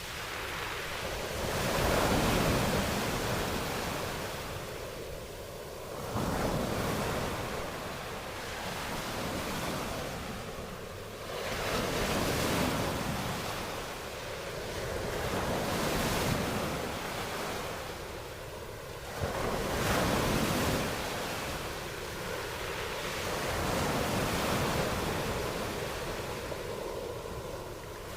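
Ocean surf: waves breaking and washing in one after another, the rush swelling and ebbing every few seconds, with some wind.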